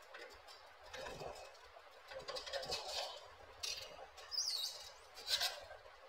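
Screwdriver working the screws that fix the blade brackets to a Jamuna ceiling fan motor: a series of short metal scrapes and clicks, with a short high chirp a little after four seconds in.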